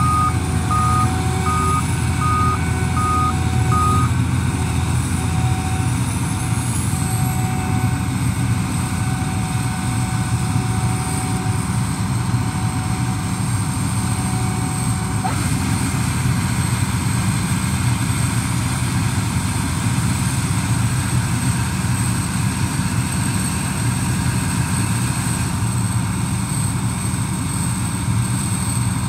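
Combine harvester running steadily, its engine a constant low hum. A short electronic warning beep repeats about every half second, stopping about four seconds in.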